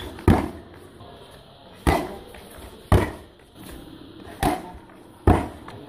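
Gloved strikes hitting hand-held striking pads: five sharp smacks in an uneven rhythm, each dying away quickly.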